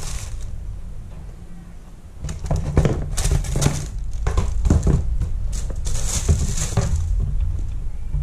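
Sneakers being handled: tissue paper rustling as a shoe is pulled from its box, then the pair scuffing as they are set down on a concrete floor and picked up again, a string of short rustles and scuffs over a low steady hum.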